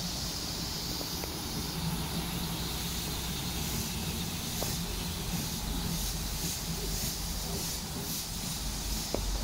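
Saddle-tank steam locomotive hissing steam as it moves off slowly, with soft, regular exhaust beats from about halfway through.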